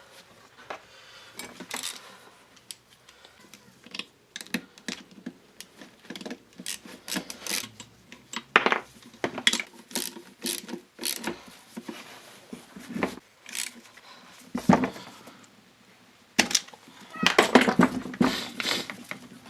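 Hand tools and small metal engine parts clicking and knocking as bolts are fitted and tightened during scooter engine assembly, with a quick, louder run of clicks near the end.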